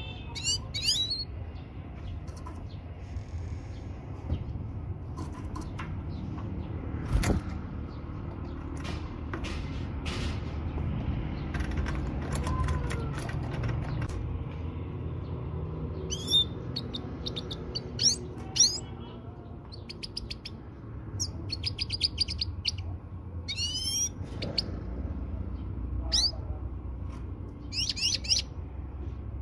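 European goldfinch calls: short, high twittering chirps and quick sweeping notes in scattered clusters, more frequent in the second half, over a low background rumble with a few sharp clicks. The calls are offered as a female's voice to bring a male goldfinch into mating condition.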